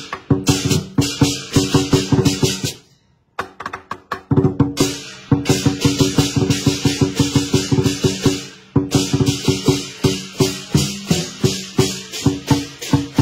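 Chinese lion dance drum beaten in fast, driving rolls, with hand cymbals crashing along. The playing stops for a moment about three seconds in and starts again.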